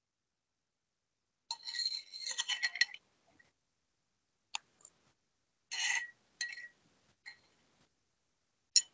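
Faint, scattered clicks and clinks with dead silence between them: a short cluster about a second and a half in, then a few single clicks later.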